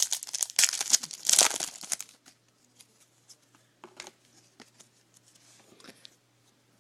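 Trading-card pack wrapper crinkling and tearing as it is ripped open, loud for about two seconds, then faint rustles and ticks as the cards are handled.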